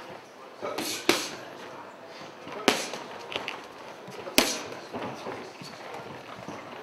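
Boxing gloves punching focus mitts: a handful of sharp smacks spaced one to two seconds apart, the loudest about a second in, near the three-second mark and past the four-second mark.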